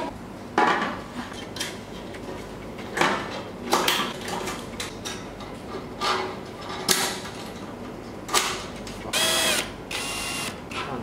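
Aluminium mounting rails, clamps and panel frames being handled and snapped into place: a series of sharp metallic clacks and knocks. About nine seconds in, a cordless drill whirs in two short runs, driving a fastener into a rail clamp.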